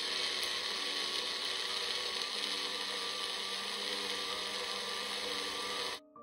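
Small single-serve blender motor running steadily at full speed, grinding soaked mung beans and water into a fine slurry; it cuts off suddenly near the end.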